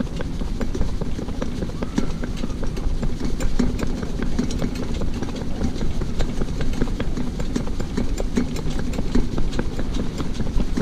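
Shetland pony's hooves clip-clopping on a tarmac road in a quick, even rhythm, over the low rumble of the cart's wheels.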